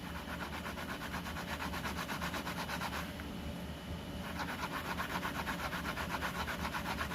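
Scotch-Brite scouring pad scrubbing the face of a disc brake rotor in fast, even back-and-forth strokes, pausing for about a second partway through. The scrubbing is cleaning off the contamination that makes the brake squeal.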